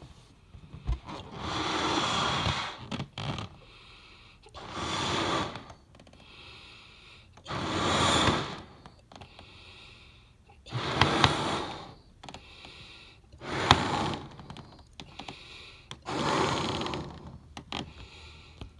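A person blowing up a rubber balloon by mouth: a hard breath blown into it about every three seconds, with quieter breaths drawn in between and a few short clicks.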